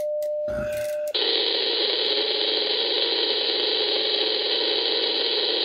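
Shortwave receiver static on the 75-meter loop antenna, heard through the radio's speaker: a steady hiss with an AC buzz in it from local electrical interference, at about S5 to S6. For the first second the static drops away and a single steady tone sounds, then the noise comes back.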